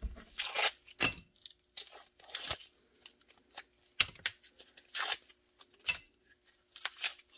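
Blue painter's tape being pulled and torn in short rips, with plastic crinkling and light taps as pieces are pressed down on the bench.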